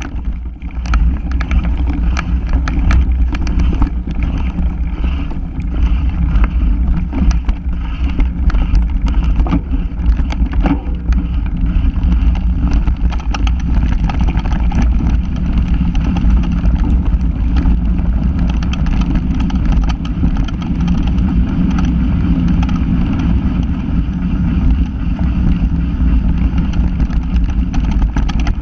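Onboard sound of a ride over a bumpy forest dirt track: a steady, loud low rumble with wind buffeting the microphone, broken by frequent short knocks and rattles from the bumps.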